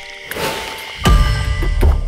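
Logo sting music: a swell with ringing tones, then a deep boom about a second in that rings on.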